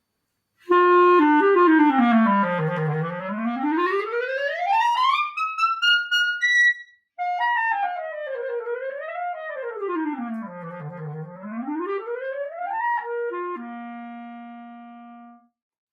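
Clarinet play-tested through a refaced, roughly 100-year-old wooden Buffet mouthpiece with a Blue Box 3 reed. It plays a fast run down to the bottom of its range and back up to a high note, breaks off briefly, then plays another sweeping run down and up. It ends on a held low note that fades away.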